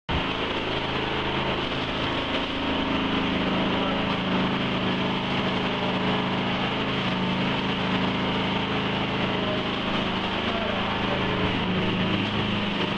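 Engine of a Wacker power buggy running steadily while its hopper tips out a load of wet mix; an even engine drone with a low steady pitch.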